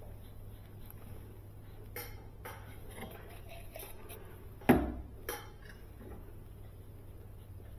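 Metal tools and copper refrigerant tubing clinking and tapping as they are handled, with one sharp knock a little past halfway and a lighter one just after. A steady low hum runs underneath.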